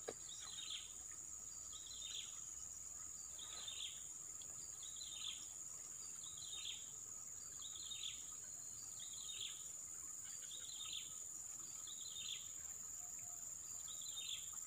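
A steady high-pitched insect drone, with a short call repeated about every second and a half, likely a bird calling over and over.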